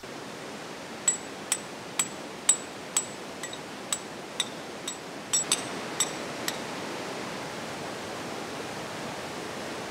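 A hammer striking steel on rock about twice a second, sharp ringing clinks as a hole is hand-drilled. The clinks stop about six and a half seconds in, over a steady rush of water.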